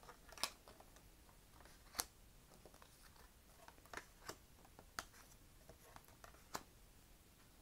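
Near silence broken by about six faint, sharp clicks and taps, spaced a second or so apart, from tarot cards being handled and laid on a table.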